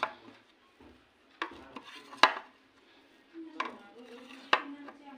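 Kitchen utensils knocking and scraping against dishes: about five sharp clinks spread over a few seconds, the loudest a little over two seconds in.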